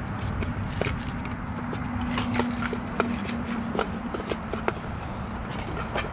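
Irregular clicks and light knocks of hand tools and parts being handled during engine disassembly, over a steady low hum.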